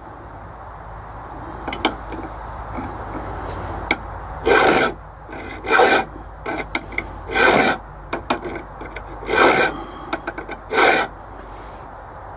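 A hand file rasps across the hardened steel of an old worn-out file clamped in a small vise, cutting cross notches to make broach teeth. There are five slow strokes about a second and a half apart, starting about four seconds in. Light scrapes and taps come before and between the strokes.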